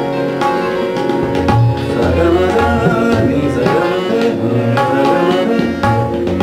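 Harmonium playing a melody over held notes, with tabla accompaniment keeping a rhythm of quick strokes and deep bass thuds, in Indian light-classical music.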